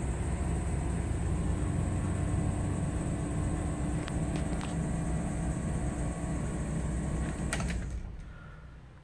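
1995 Chevrolet G10 van's 5.0-litre GM V8 idling steadily, heard from inside the cab. Near the end a click, then the engine is switched off and dies away.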